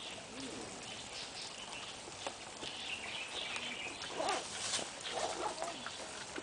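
Giant panda chewing and snapping bamboo, with scattered crunching clicks. High chirping sounds in the background, loudest a few seconds in.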